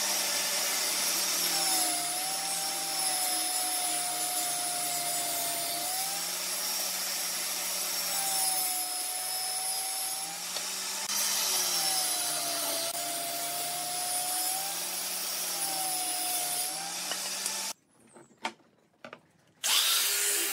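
Benchtop table saw running and ripping thin strips of wood, its motor note dipping four times as the blade takes load in the cut. It cuts off sharply near the end, and after a short pause an angle grinder with a sanding disc starts up.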